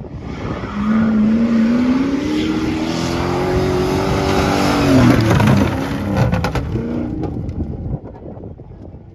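Off-road rally car passing by at speed. Its engine note rises steadily as it accelerates in, is loudest about five seconds in, then drops in pitch and fades as it goes away. A quick run of sharp clicks follows just after it passes.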